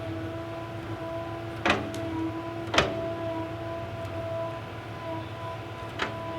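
Steady whine of small electric motors, like a remote-control toy excavator's, with three sharp knocks: two close together about two seconds in and one near the end.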